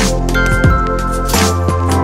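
Background electronic music with a steady beat of drum hits over sustained synth and bass notes.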